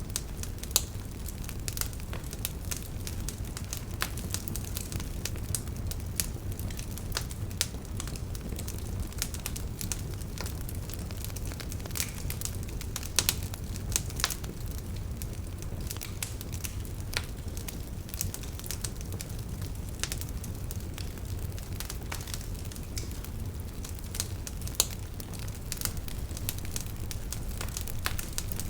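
Wood fire burning steadily with a low rumble of flames and irregular sharp crackles and pops, a few of them loud.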